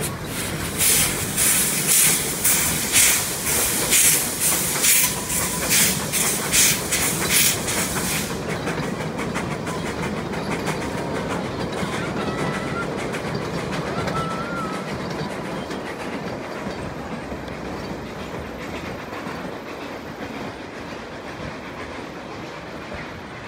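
Narrow-gauge Puffing Billy steam locomotive working a passenger train across a timber trestle: sharp exhaust chuffs about twice a second for the first eight seconds, then the steady rumble and clatter of the carriages, with steam hiss, slowly fading as the train moves away.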